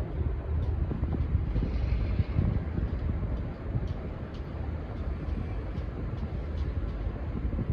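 Steady low rumble of a train moving through the station, with wind buffeting the microphone and a few faint clicks.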